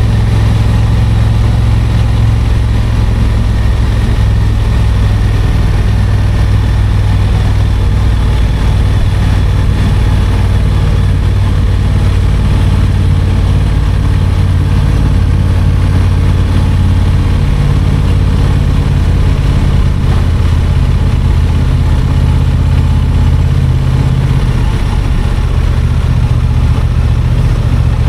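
Honda Transalp XL750's parallel-twin engine running steadily at low revs, its pitch shifting only slightly.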